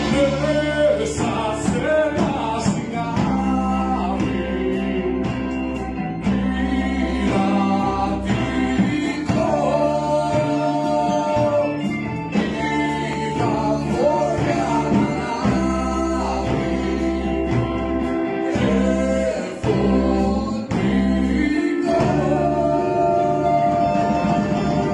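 A live rock band playing: a man singing the melody, holding and bending long notes, over electric guitars, bass and drums.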